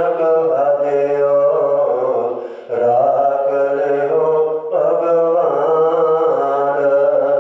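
A man chanting Gurbani from the Sikh scripture in long, held melodic phrases, with short breaks for breath about two and a half and four and a half seconds in.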